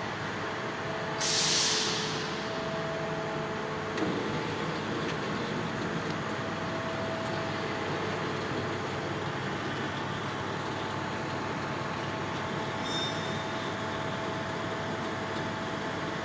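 Fiber laser metal cutting machine running with a steady mechanical hum, with a short loud hiss of released air about a second in and a single knock about four seconds in.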